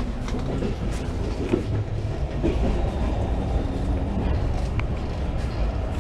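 Passenger train running along the line: a steady low rumble with a few scattered sharp clicks of the wheels over the rails.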